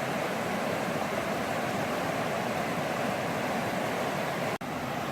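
Cache la Poudre River's water rushing, a steady even wash of noise, which drops out for an instant about four and a half seconds in.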